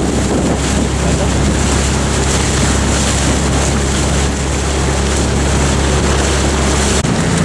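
Motorboat's outboard engine running at a steady low hum, under wind rushing over the microphone and water noise. The engine note changes abruptly about seven seconds in.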